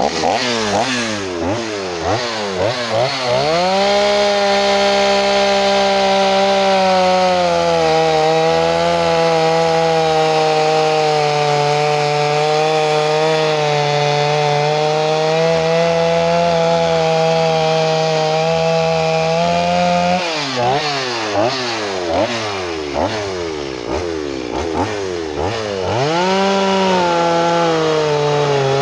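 Gas chainsaw revved up and down in quick blips, then held at high revs for about sixteen seconds while shaving into a log, its pitch dipping a little. Around two-thirds of the way in it goes back to a series of quick revs, then holds high again briefly.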